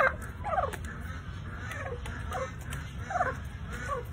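Domestic turkeys calling: several short calls, each dropping in pitch, over a steady low rumble.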